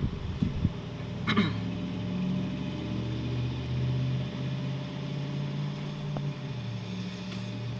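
A low, steady motor hum, with a sharp click about a second and a half in.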